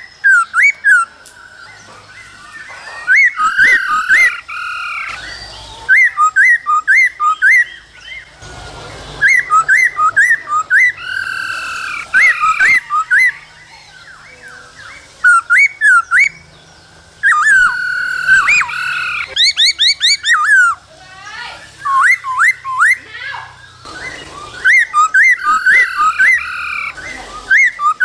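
Male black-throated laughingthrush singing: loud phrases of quick, clear whistled notes sweeping up and down, one phrase every two to three seconds with short pauses between.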